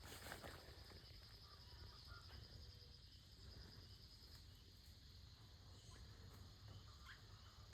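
Near silence: faint outdoor background with a high, thin, rapidly pulsing insect trill for a few seconds in the first half.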